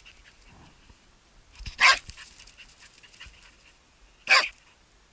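Hunting laika barking twice, single short barks about two and a half seconds apart.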